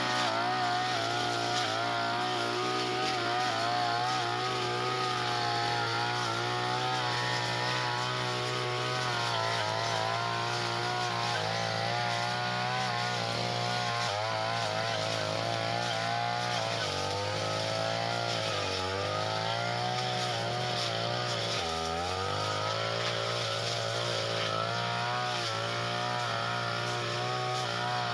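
Tanica brush cutter (grass-cutting machine) engine running steadily at high speed, its pitch dipping briefly a few times about two-thirds of the way through.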